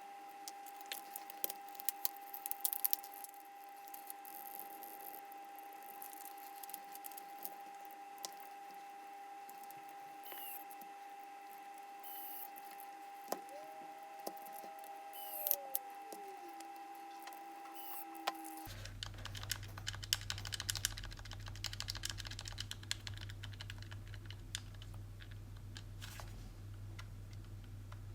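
Scattered small plastic clicks and taps from the DualSense controller's parts being handled, densest in the first few seconds, over a faint steady tone. A low hum comes in about two-thirds of the way through.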